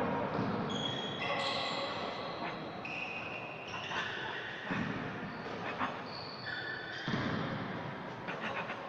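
Sports shoes squeaking on a sports hall floor in short, high squeaks that jump between pitches, with a few dull thuds in between, in a large hall.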